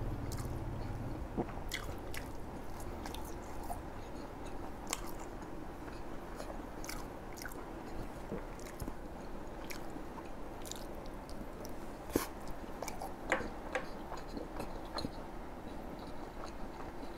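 Close-miked chewing of fried tofu and rice vermicelli, soft and wet, with scattered sharp mouth clicks; two louder clicks come a little past the two-thirds mark.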